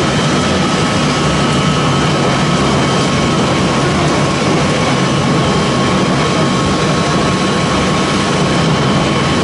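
Wood pellet production line machinery running steadily: a loud, even mechanical noise with a low hum and thin, steady high whines.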